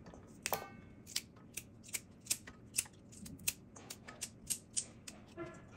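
Yardlong beans snapped by hand into short pieces, a crisp snap about two or three times a second.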